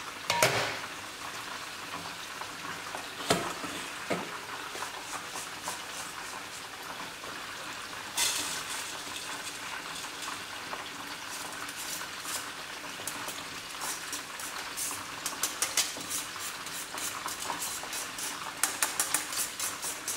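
Chicken wings deep-frying in a pot of oil, a steady sizzle, with metal scraping and clanking as pandan sticky rice is spooned from a metal strainer into an aluminium steamer tier. There are a few sharp clatters, and a quick run of small taps near the end.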